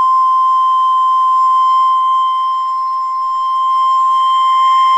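Wooden soprano (descant) recorder playing one long, steady high C.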